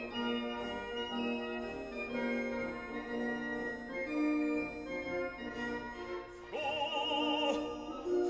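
Background music: slow, sustained keyboard chords changing every second or so, joined about six and a half seconds in by a singing voice with wide vibrato.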